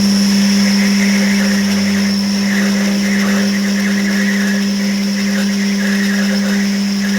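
A workshop machine running steadily: an even, loud hum with a steady high-pitched whine over it.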